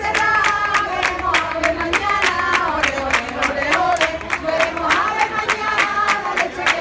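Flamenco singing by a group of voices over palmas, the rhythmic flamenco hand-clapping, with several sharp claps a second.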